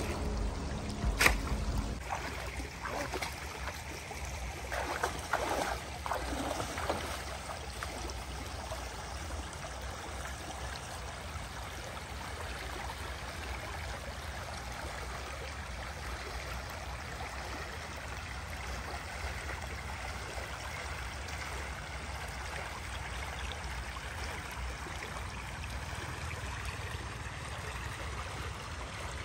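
Splashing from someone wading through shallow water in the first few seconds, with a sharp splash about a second in, then the steady rush of a shallow stream flowing.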